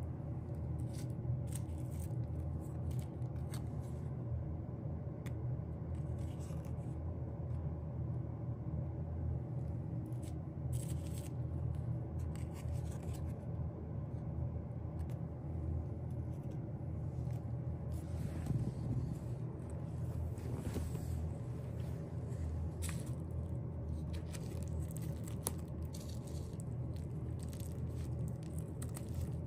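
Album packaging and its paper and plastic contents being handled by hand: scattered light scrapes, rustles and clicks over a steady low hum.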